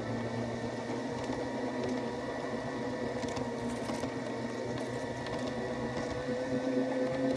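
Garden-scale model streetcar's electric motor and gearing running, a steady whir with a whine that rises slightly near the end, and a few light clicks.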